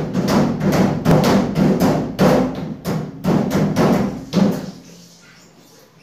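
A toddler slapping both hands against a glossy cabinet door, a fast run of slaps about four a second that stops near the end.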